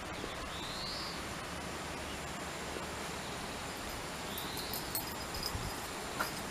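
Steady outdoor background hiss, with a bird's short rising chirp twice and a few faint clicks near the end.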